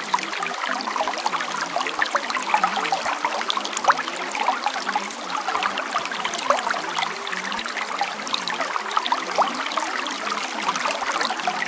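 Steady running water, trickling and splashing continuously.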